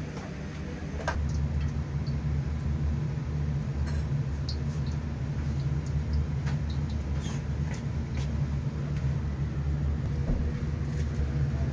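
Steady low machine hum, like restaurant kitchen equipment or ventilation running, with a scattering of light clicks and clinks of tableware.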